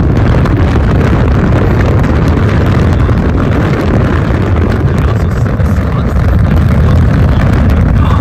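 Severe thunderstorm wind blowing hard across the microphone: a loud, steady rush of noise, heaviest in the low end.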